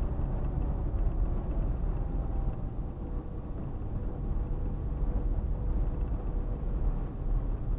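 Fiat Uno Economy driving slowly: a steady low engine and tyre rumble, with a faint steady whine in the middle.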